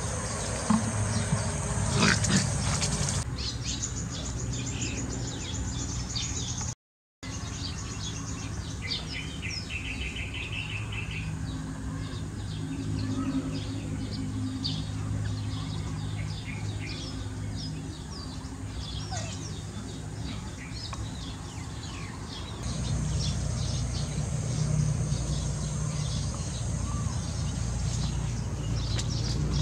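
Outdoor ambience of small birds chirping and twittering, with a short rhythmic trill about ten seconds in, over a steady low hum.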